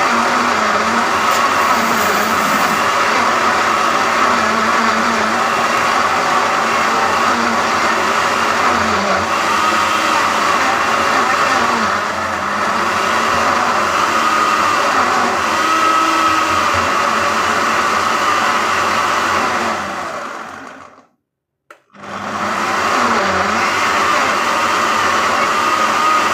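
Blender running steadily, pureeing chopped carrots and onion with a little water. It stops for about a second near the end, then runs again.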